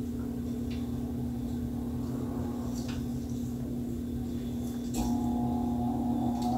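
A steady low hum with a few faint, soft ticks as paper strips are handled on a wooden table. About five seconds in, a second, higher steady tone joins the hum.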